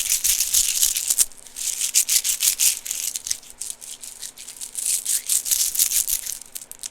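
Fidget toy being handled close to the microphone: quick rustling, rattling clicks in bursts, with a short lull a little over a second in.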